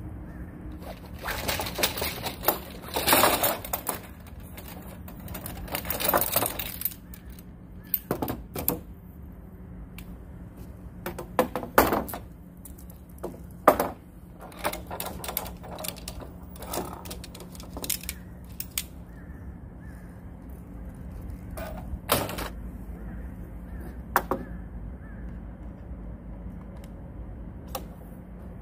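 Scattered knocks, clicks and short bursts of clatter, like objects being handled and set down, over a steady low hum. The clatter is densest in the first few seconds, then thins to single knocks.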